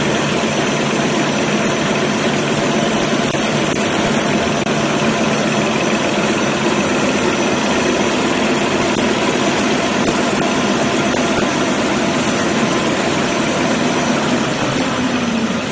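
Kitchen towel paper rewinding machine running steadily, a loud dense mechanical noise with steady hum tones. Near the end a high whine falls in pitch as the machine starts to slow.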